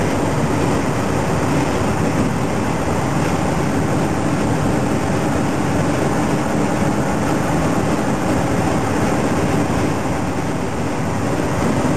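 Semi-truck driving at a steady speed: a continuous drone of engine and road noise.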